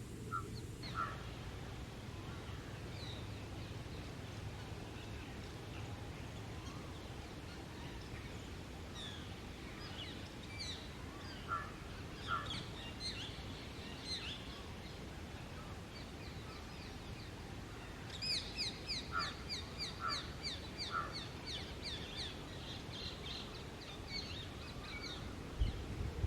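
Birds calling over steady outdoor background noise: scattered short calls, then about two-thirds of the way in a fast run of shrill, repeated high calls lasting several seconds.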